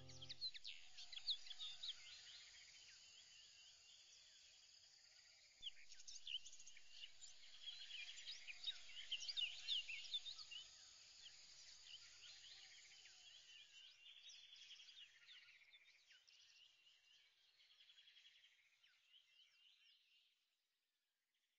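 Faint birdsong: many small birds chirping with quick, short calls, busiest in the middle and fading out near the end.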